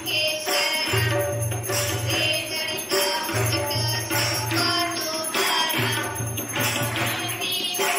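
Aarti, a Hindu devotional song, being sung to music with jingling percussion and a recurring low bass pattern.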